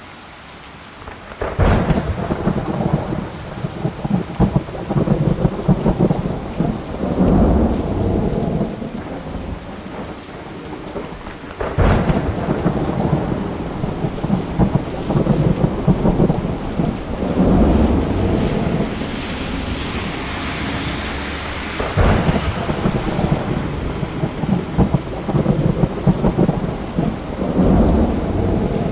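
Thunderstorm: three sharp thunderclaps, about one and a half, twelve and twenty-two seconds in, each followed by long low rolling rumbles, over steady rain. The rain briefly swells into a brighter hiss around two-thirds of the way through.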